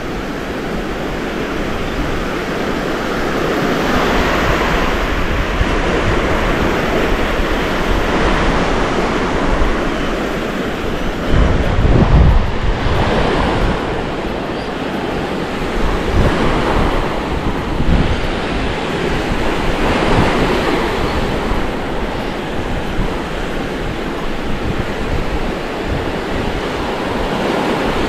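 Small Gulf of Mexico surf breaking and washing up the sand, swelling and ebbing every few seconds in a slightly rough sea. Wind buffets the microphone, in gusts that are strongest about halfway through.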